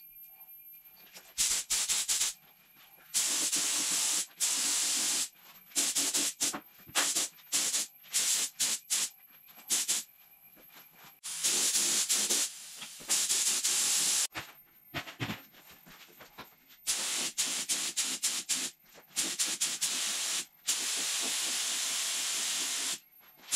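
Gravity-feed compressed-air spray gun spraying paint, hissing in repeated bursts as the trigger is pulled and released. Each pass lasts from a fraction of a second to about two seconds, and each starts and stops sharply.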